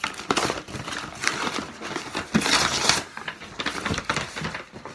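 Paper being ripped, crumpled and rustled as white wrapping paper is torn and pulled out of a cardboard box, in quick irregular rustles, with a longer, louder rip about two and a half seconds in.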